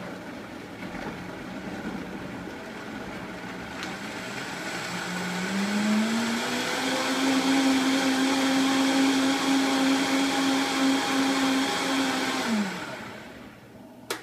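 High-powered countertop blender blending a vegetable green smoothie: it runs at a lower speed, steps up to a higher pitch about five seconds in as the speed is raised, runs steady and loud, then winds down and stops near the end.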